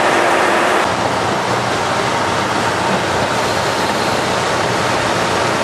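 KiHa 183 diesel railcar standing at the platform with its engines idling: a loud, steady running hum and fan noise that dips slightly about a second in.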